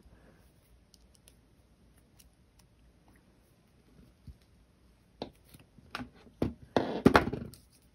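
Jewelry pliers working fine gold-fill wire: near quiet at first, then a few light clicks and a denser burst of clicking and rustling about seven seconds in.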